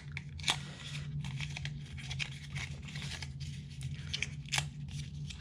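Rustling, crinkling and tearing of phone-box accessory packaging as items are pulled out by hand, with a few sharp clicks among the scratchy noise.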